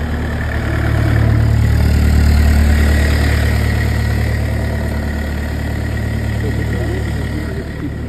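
Compact excavator's diesel engine idling steadily, a low even hum that swells slightly around two seconds in.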